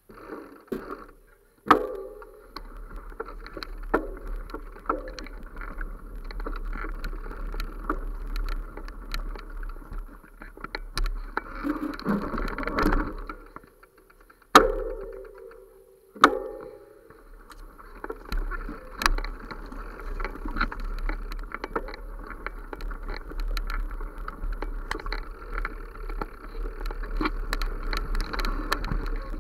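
Rumble and rustle of handling and wind noise on a handheld camera's microphone as it is carried along a woodland footpath, with frequent sharp clicks and knocks. There is a loud knock about halfway through, and the noise briefly drops out a few times.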